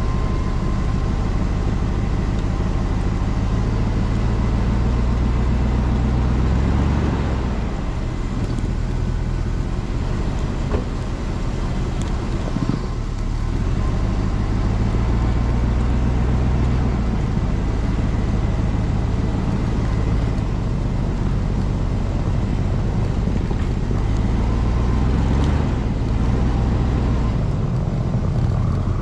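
A four-wheel-drive vehicle's engine running as it drives through deep snow in 4x4, with the tires churning through the snow. The engine note shifts a few times.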